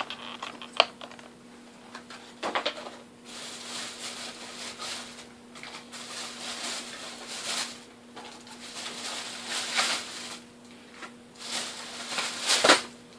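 Rummaging and rustling as things are handled and sorted through off to the side, with a sharp click just under a second in and a louder knock near the end.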